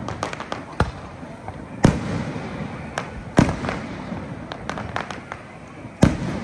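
Fireworks display: shells bursting overhead in sharp bangs, the loudest about two, three and a half, and six seconds in, with smaller scattered cracks between them and a low rumble throughout.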